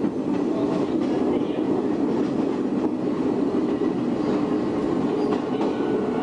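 Shin-Keisei 500-series electric car with nose-suspended traction motors running, heard from inside the driver's cab: a steady running rumble with a few faint wheel clicks over the rails.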